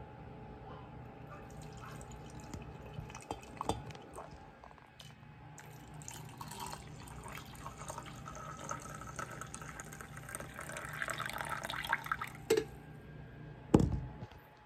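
Hot coffee poured from a drip coffee maker's glass carafe into a ceramic mug, the stream splashing and trickling as the mug fills, louder in the second half. A sharp knock near the end.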